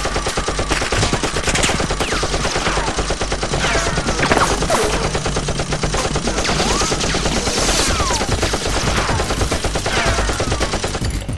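Continuous rapid gunfire like machine-gun bursts, the shot sound effects of a toy-blaster gunfight. Several whistling sounds fall in pitch through it.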